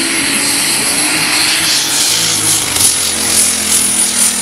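Modified tractor-pulling tractor's engine running loudly at the start line, a steady low drone with a thin high whine above it; from about two seconds in, the sound takes on a fast flutter.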